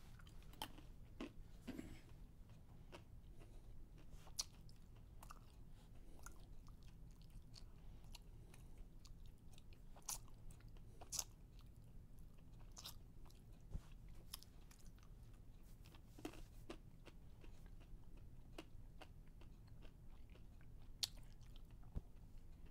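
Near silence: a low steady hum with faint, irregular clicks and ticks scattered through it.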